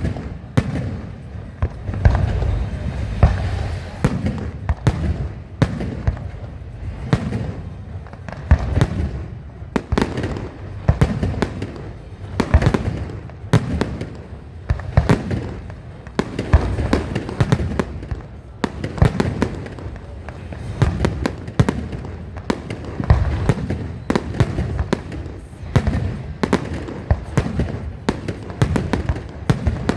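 Aerial fireworks going off in a continuous barrage: a dense run of sharp bangs, several a second at times, over a low rolling rumble.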